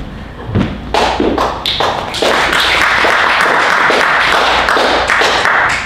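Audience applauding: a few scattered claps about a second in, swelling into steady applause that cuts off suddenly near the end.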